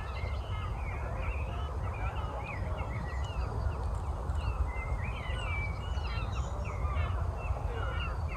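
Woodland birds chirping and calling together, many short overlapping notes, over a steady low rumble.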